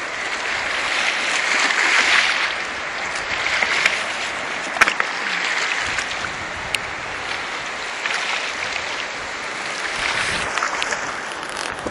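River water rushing and washing over the stones at the bank, a steady wash that swells and eases, with a few sharp clicks, one about five seconds in.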